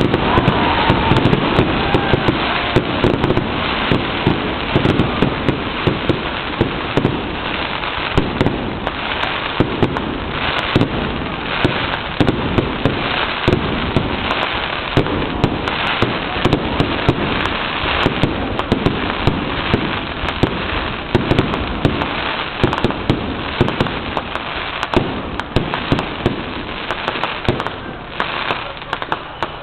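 Fireworks display: a continuous barrage of sharp bangs from bursting shells over dense crackling, easing off slightly near the end.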